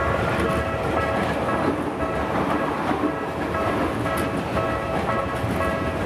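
Japanese railway level-crossing alarm ringing its repeating electronic ding while an electric commuter train passes over the crossing. The train's running noise is loud under the bell.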